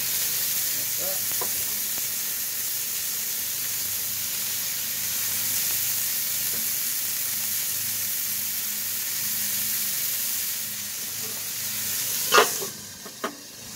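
Burger patties sizzling steadily on a hot homemade steel griddle. About twelve seconds in, a stainless steel dome is set down over them with a clank, and the sizzle turns muffled.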